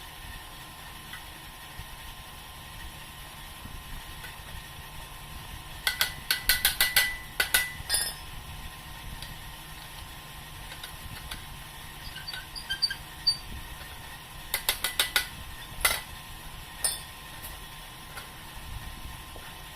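Quick metal-on-metal taps that ring briefly, several a second: a run of about eight a third of the way in and another of about five later, with a few single taps after. A steady low hum lies underneath.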